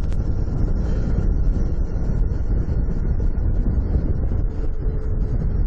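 Honda Shadow 750 V-twin motorcycle running steadily at road speed, with wind rushing over the microphone.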